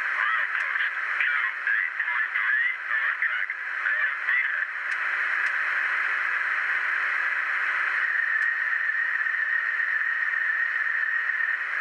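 ESU LokSound Select sound decoder playing diesel locomotive sounds through a tiny speaker in an HO scale model's cab, thin and tinny with no bass. The sound shifts and flutters at first, and a steady tone sets in about two-thirds of the way through.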